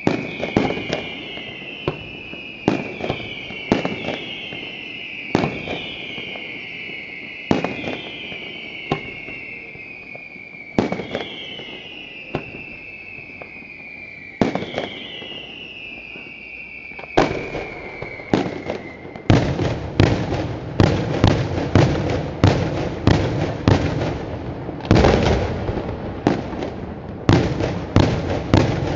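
Daytime fireworks display: whistling shells, their whistles falling in pitch and overlapping one another, cut through by sharp bangs. From about two-thirds of the way in the whistles stop and a rapid barrage of loud bangs follows, about two a second.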